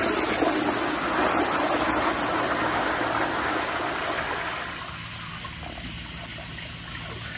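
Sloan Regal flushometer with a 3.5-gallon diaphragm flushing a Kohler Kingston siphon-jet wall-hung toilet at full water pressure. It is a hard rush of water into the bowl, strong enough to splash over the rim. The rush eases off about four to five seconds in.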